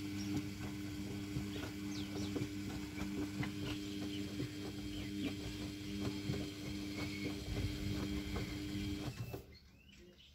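Samsung WFR861 front-loading washing machine tumbling its foamy load during the wash: a steady motor hum with sloshing water and small clicks and knocks from the drum. The sound drops away sharply about nine seconds in.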